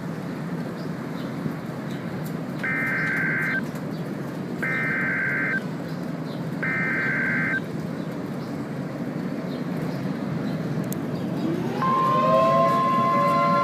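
Emergency Alert System header: three data bursts of about a second each, a second apart, over a steady noise. Near the end a rising siren-like tone settles into a steady chord of several tones, the alert tone that introduces a tornado warning.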